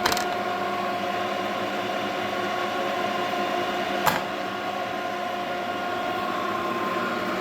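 Takisawa gear-head lathe running under power with a steady gear whine, its feed bar turning and the cross feed engaged. Two sharp clicks come through, one at the start and one about four seconds in.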